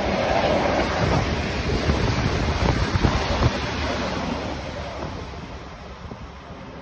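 Freight train of double-deck car-carrier wagons rolling past: a steady rumble and rush of wheels on rail, with a few knocks about three seconds in, and wind on the microphone. It fades over the last few seconds as the train draws away.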